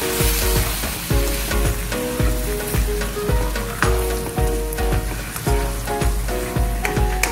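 Raw chicken pieces sizzling in hot oil in a wok as a spatula stirs them through garlic, ginger, onion and chili, with background music and a steady bass beat over it.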